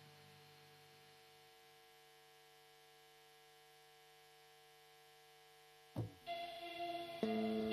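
Faint, steady electrical hum from an amplified sound system. About six seconds in there is a sudden pop, then music starts and grows louder near the end.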